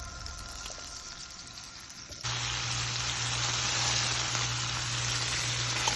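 Food sizzling in a hot frying pan, cutting in abruptly about two seconds in after a quiet stretch and then holding steady, with a low hum beneath it.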